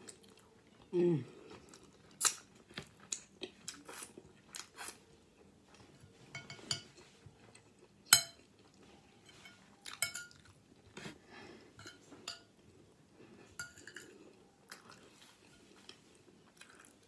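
Metal spoon clinking and scraping against a plate while scooping rice, in a run of short sharp clicks, the sharpest about eight seconds in. A short low sound, falling in pitch like a voice, comes about a second in.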